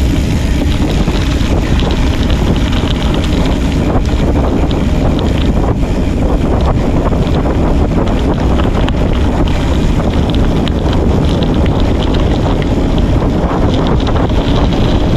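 Loud, steady wind noise buffeting the microphone of a camera on a moving gravel bike, with many small crackles and clicks running through it.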